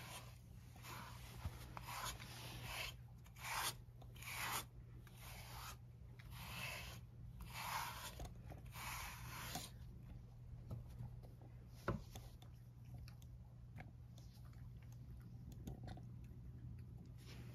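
A plastic slicker-type grooming brush drawn through a cat's fur in a series of short brushing strokes, about a dozen over the first ten seconds, then stopping; the brushing combs out seeds caught in the coat. One sharp click about twelve seconds in.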